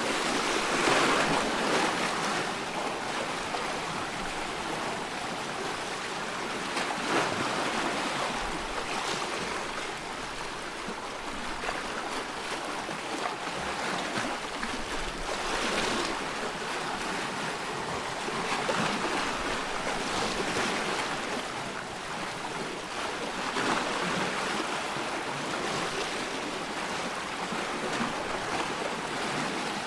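Sea waves breaking and washing over a rocky shore, a continuous rushing surf that swells and ebbs every few seconds.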